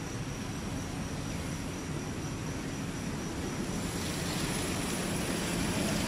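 Steady low engine rumble, like a motor vehicle running, growing a little louder from about four seconds in.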